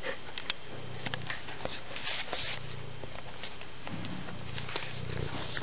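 Domestic cat purring while it eats, the purr coming in low stretches of about a second each, with the small wet clicks of chewing and lapping from the food bowl over it.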